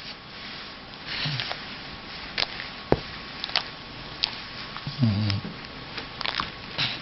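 A dog sniffing in short breathy bursts, with several sharp clicks and a brief low grunt about five seconds in.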